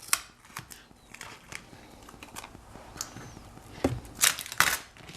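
Hands handling small parts, tape and plastic on a workbench: scattered light clicks and crinkling, with a few sharper clicks near the end.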